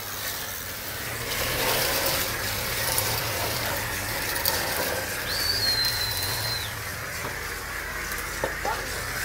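Machinery running with a steady hiss over a low hum. About five seconds in, a thin high squeal lasts for about a second and a half.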